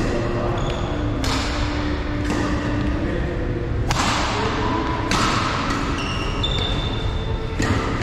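Badminton rally: racket strings striking the shuttlecock about five times, roughly one to one and a half seconds apart, each sharp hit ringing briefly in the hall. Short high squeaks of court shoes on the floor come between the hits.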